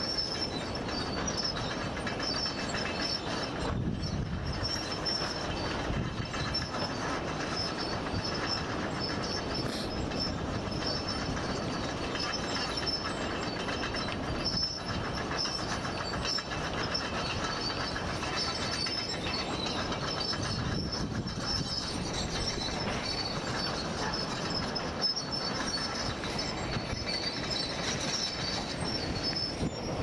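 Ocean surf breaking on a sandy beach break and washing in as whitewater: a steady rushing noise that never stops.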